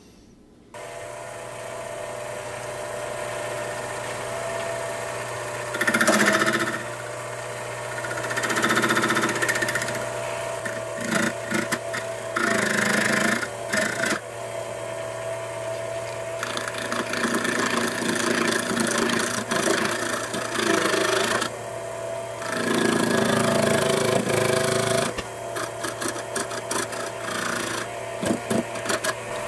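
7x14 mini lathe switched on about a second in, its motor and spindle running at a steady hum with the 4-jaw chuck spinning. Several louder scraping stretches come and go over it as the cutting tool is fed into the turning workpiece.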